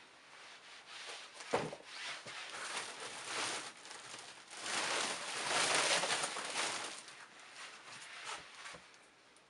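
Rustling and rubbing handling noise as used shoes are handled and set down on a pile of shoes, with a single knock about a second and a half in as a pair lands. The rustling grows louder for a couple of seconds around the middle.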